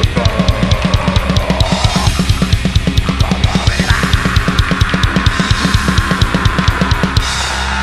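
Death metal band playing live: fast, even double-bass-drum strokes with cymbals over a dense wall of guitar. The drumming breaks off about seven seconds in, leaving a low chord ringing.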